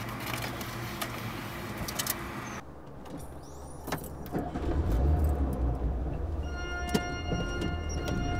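Car interior sound as a car stereo is tuned: a hiss with clicks that cuts off suddenly about two and a half seconds in. A deep low rumble then builds, and held steady tones of music come in near the end.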